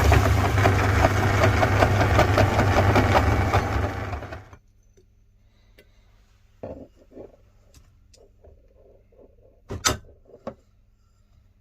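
Electric meat grinder running loudly, then switched off about four and a half seconds in. After it stops, a few light clicks and one sharp knock near the end.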